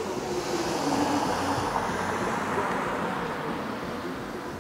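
A car driving past on the street, its engine and tyre noise swelling to a peak a second or two in and then fading away.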